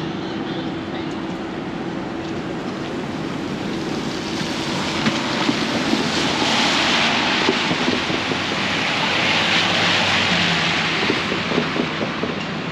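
Vehicles passing on a wet city street: tyre hiss swells up twice in the second half and then fades, over a steady low hum.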